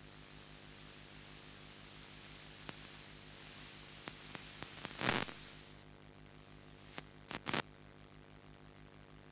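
Faint room hum with a hiss that swells and then cuts off about six seconds in, and scattered short clicks and knocks, the loudest about five seconds in and a quick pair a little after seven seconds.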